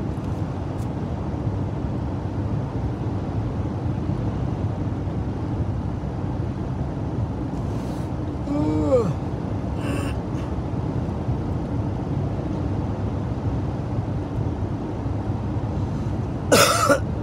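Steady road and engine rumble heard from inside a moving car's cabin, with a short vocal sound about halfway through. Near the end, a loud harsh throat-clearing hawk as a man brings up a loogie.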